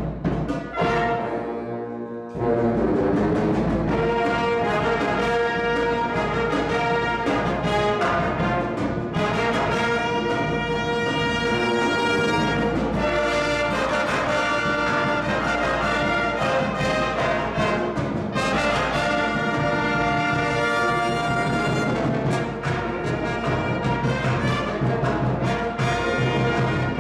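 Live pep band playing a tune: saxophones, trumpets, trombones, flutes and a sousaphone over drums. The music is quieter for the first couple of seconds, then the full band comes in loud.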